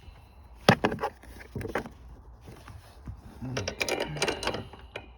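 Irregular clicks and knocks of tools and seat-mounting hardware being handled while the seat bolts are started: a short burst about a second in and a longer clatter in the second half.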